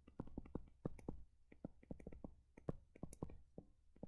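Faint, irregular ticks and taps of a stylus writing on a touchscreen, several a second.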